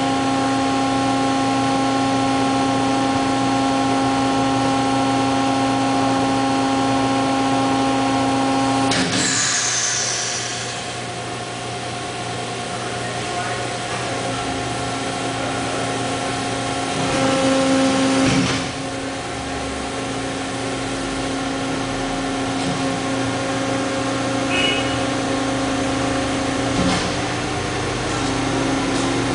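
Hydraulic power unit of a 795-ton molding press running with a steady whine of several tones. About nine seconds in the tone changes and drops with a brief hiss, and the sound swells again for a second or so around eighteen seconds in, while the press cycles open.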